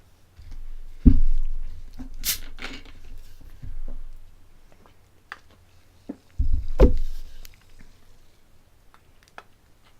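Dull thumps and knocks with small sharp clicks, from things being handled on a table close to the microphone; the heaviest thumps come about a second in and about six and a half seconds in.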